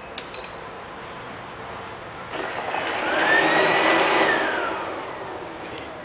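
LL-283 (Q5) robot vacuum cleaner: a click and a short high beep as its button is pressed, then a little over two seconds in its motors start, louder, with a whine that rises, holds and falls away as it runs.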